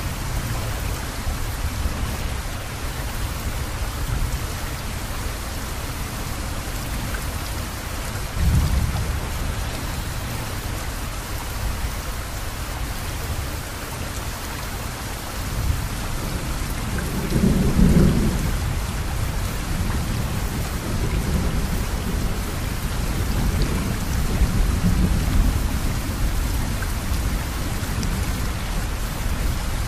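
Steady rain hissing, with low rumbles underneath that swell about 8 seconds and 18 seconds in.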